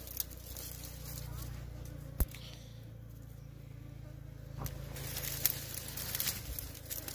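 Honeybees buzzing steadily around their disturbed nest, with a sharp click about two seconds in and scattered crackles and snaps in the second half.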